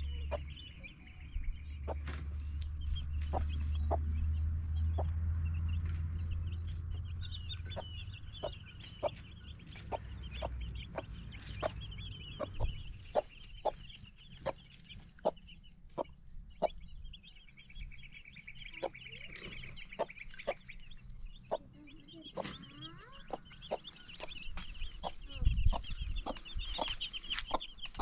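Domestic hen clucking over and over in short clucks, with higher chirping at times. A low rumble runs through the first half, and a single low thump comes near the end.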